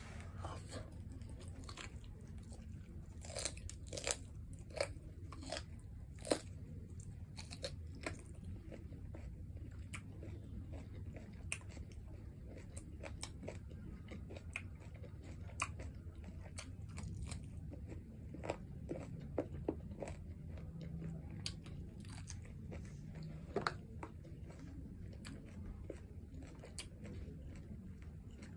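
Close-miked chewing and biting of rice and tomato stew eaten by hand: wet mouth clicks and scattered crunches over a steady low background hum.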